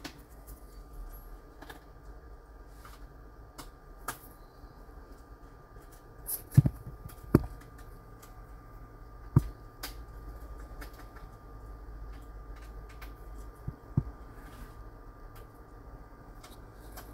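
Hot air rework gun running with a steady fan hum and hiss and a faint high whine, while tweezers and the laptop motherboard click and tap against the work mat. A few louder knocks fall around six to seven and a half seconds in, again at about nine seconds and near fourteen seconds, as the board is handled.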